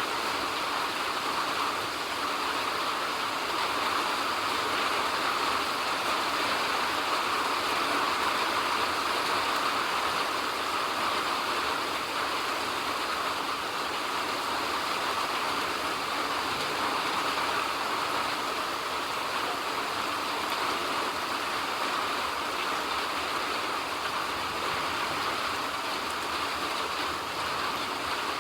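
Steady rain, an even hiss of falling water with no distinct drops or changes.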